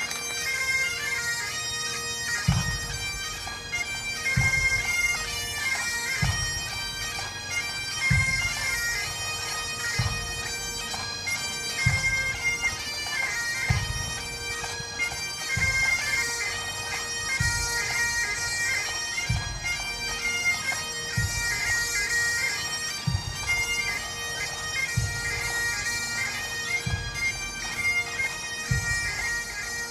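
A massed pipe band of Highland bagpipes playing a tune over their steady drone, with a deep drum stroke about once every two seconds that starts a couple of seconds in.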